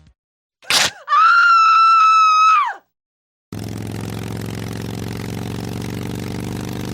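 A sharp, brief sound, then a loud, high-pitched scream held for about a second and a half and dropping at its end. After a short silence a steady low droning hum sets in.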